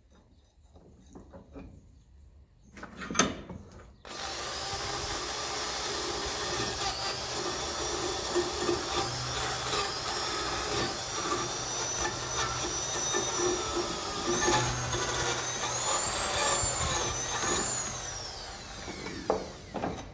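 A knock, then about four seconds in an electric power tool starts abruptly and runs on metal for about fourteen seconds, its high whine wavering as it works. Near the end it is switched off and the whine falls as it winds down.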